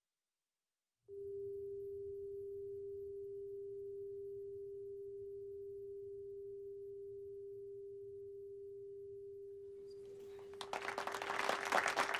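A single steady pure tone starts about a second in and holds for about nine seconds, slowly fading. Near the end it gives way to a crowd applauding.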